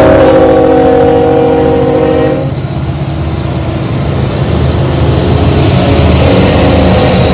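Union Pacific diesel freight locomotives passing close by, their engines running loudly, while the train's air horn sounds a chord of several tones that cuts off about two and a half seconds in.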